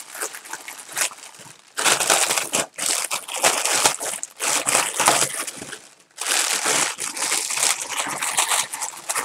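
Clear plastic packaging bag crinkling and rustling as it is handled and worked open around a coiled expandable garden hose. Lighter at first, it becomes loud and continuous from about two seconds in, with a brief break near six seconds.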